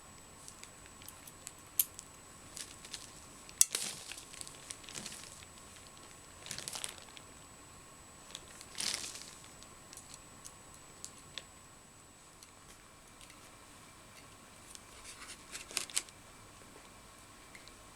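Intermittent rustling and crinkling with scattered light clicks and taps, from hands handling craft materials; the louder rustles come about four, seven, nine and sixteen seconds in.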